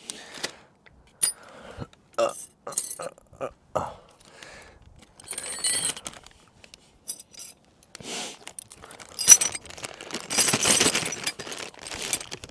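Small metal hand tools (spanners, sockets, screwdrivers) clicking and clinking together as a motorcycle tool kit is packed away, with a clear plastic pouch crinkling, longest and loudest about nine to eleven seconds in.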